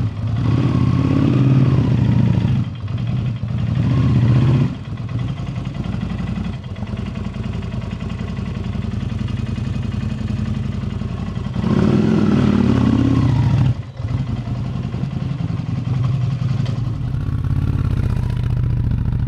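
Motorcycle engine running just after a cold start: revved twice in the first few seconds, settling to a steady idle, revved again about twelve seconds in, then running steadily as the bike rides off.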